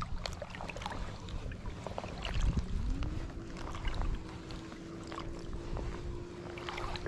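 A distant boat's outboard motor throttling up about two and a half seconds in, its pitch rising and then holding steady. Underneath, low water sloshing and small splashes close by.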